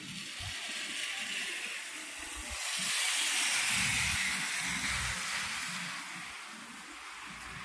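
Tyres hissing on a slushy, snow-covered street as a vehicle passes. The hiss swells about halfway through and fades over a few seconds.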